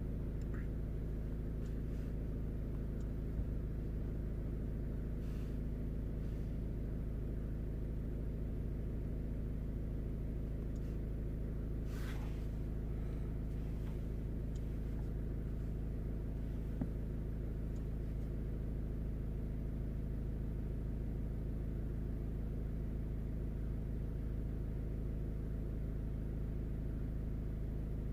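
Mazda 3 1.6 four-cylinder turbodiesel idling steadily, an even low hum, with a few faint clicks.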